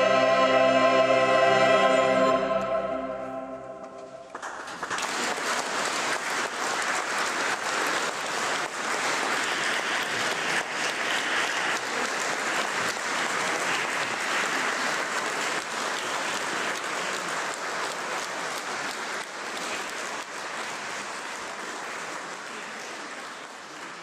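Choir with accompaniment holding a final sustained chord that dies away about three seconds in, followed by an audience applauding, the applause fading near the end.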